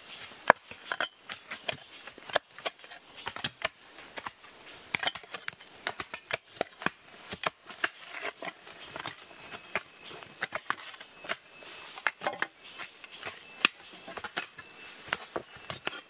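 A long-handled hoe chopping and scraping into hard, stony soil: irregular sharp knocks of the blade against dirt and small stones, a few each second.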